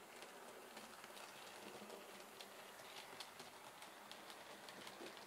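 Faint, irregular clicking of a Bachmann OO-gauge GWR 4500 Prairie tank model and its coaches running along the model railway track, the wheels ticking over rail joints.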